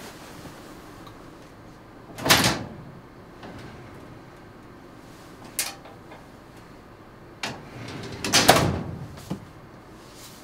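Metal filing-cabinet drawer: opened with a short sharp clack about five and a half seconds in, then slid shut with a louder, longer clatter about eight seconds in. An earlier loud knock comes about two seconds in.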